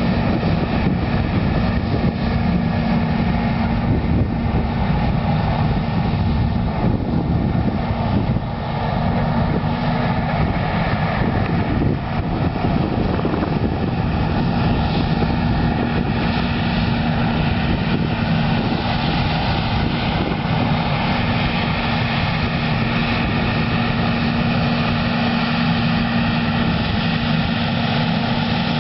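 Versatile 550 four-wheel-drive tractor's diesel engine running steadily with a constant low hum, pulling a Cat 80 scraper through a field.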